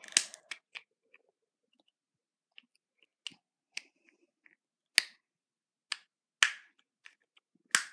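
Plastic bouncy-ball mold halves being pressed and snapped together by hand: a string of sharp plastic clicks and snaps at uneven intervals, the loudest ones in the second half.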